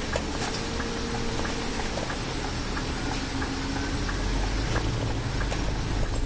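Scania Citywide city bus driving, heard from the driver's seat: a steady low running rumble with irregular light rattles and clicks from the cabin.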